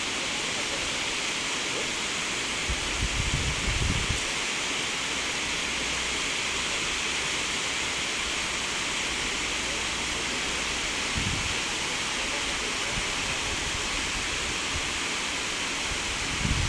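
Steady rushing of a shallow stream flowing over stones, with two brief low rumbles, one about three seconds in and one about eleven seconds in.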